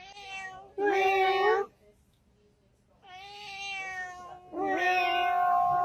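Domestic cat meowing loudly in long, drawn-out calls, about three of them, each held at a fairly steady pitch, with a short pause after the first.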